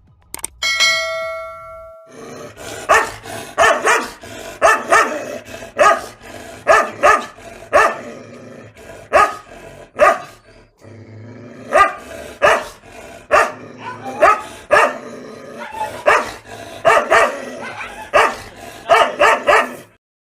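A short ringing chime, then a dog barking over and over, often in quick runs of two to four barks, until the sound cuts off.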